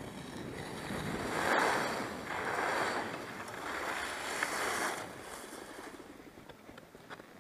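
Skis scraping and hissing over packed snow, swelling three times as the skier carves turns downhill, with some wind rush on the microphone.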